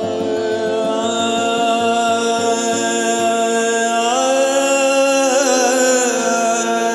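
Music: a man's voice holding long wordless notes, sliding up at the start and wavering with vibrato later, over a steady drone and a pulse of low plucked notes that stops about three seconds in.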